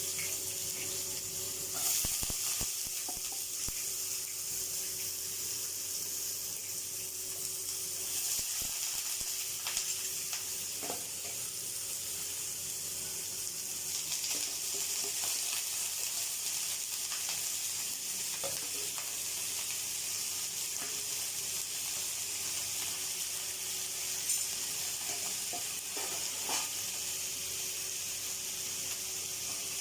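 Potato sticks frying in hot oil in a pan, a steady sizzle, with a few scattered clicks of a utensil stirring them.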